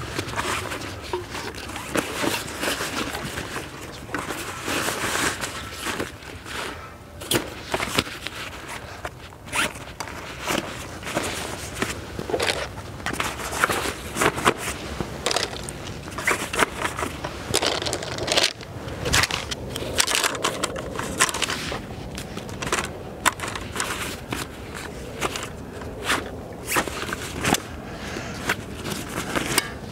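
Hands stuffing pouches into the nylon outer pockets of a Helikon-Tex Matilda backpack: continuous fabric rustling and scraping, broken by many sharp clicks from the pack's plastic buckles and clips.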